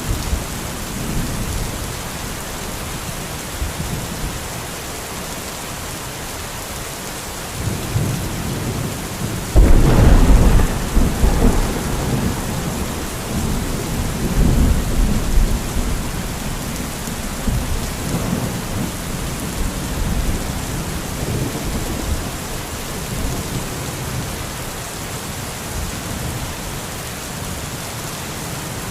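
Thunderstorm: steady rain falling, with a rumble of thunder building about a quarter of the way in, then a sudden loud crack that rolls on for several seconds, followed by smaller rumbles.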